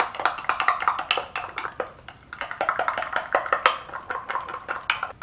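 A metal spoon stirring ranch dressing and taco seasoning in a small glass measuring cup: rapid, irregular clinking and scraping against the glass, with a brief lull about two seconds in.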